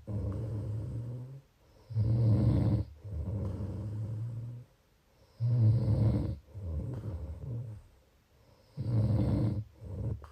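Steady rhythmic snoring: three loud rattling snores about three and a half seconds apart, each followed by a quieter, rougher second breath before a brief pause.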